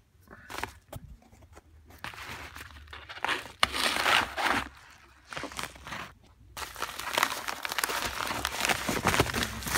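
A padded mailing envelope being crumpled and torn open, with crinkling and tearing in a burst about four seconds in, then steadily again from about two-thirds of the way through.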